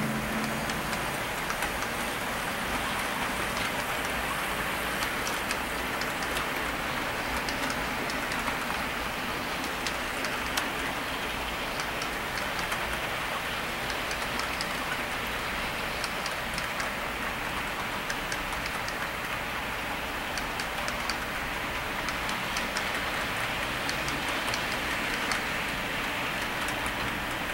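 HO scale model freight train rolling along the track: a steady rushing noise with many small scattered clicks of the wheels on the rails.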